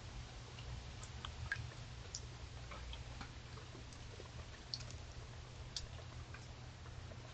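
Faint, irregular clicks and small crunches from an animal feeding at a platform feeder, over a steady low hum.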